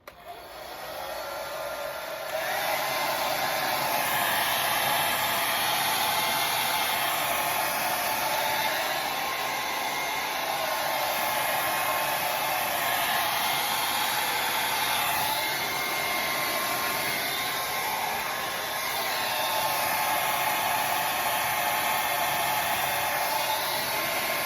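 Hair dryer blowing steadily, coming up to full strength over the first two seconds.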